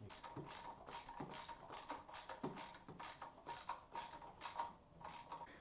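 Ratchet wrench running a nut down onto a stud, a quick even run of clicks about four a second that stops shortly before the end.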